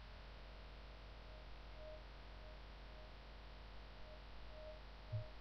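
Near silence over a low steady electrical hum, with a few faint short beeps and one soft low thump about five seconds in.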